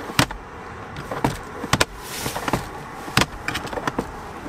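Plastic car glove box lid being opened and closed by hand, with about half a dozen sharp clicks and knocks as the latch catches and the lid swings down onto its new 3D-printed PETG stops.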